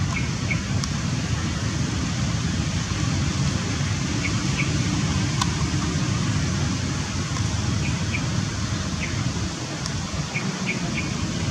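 Outdoor background noise: a steady low rumble with faint, short, high chirps scattered through it and one sharp click about five seconds in.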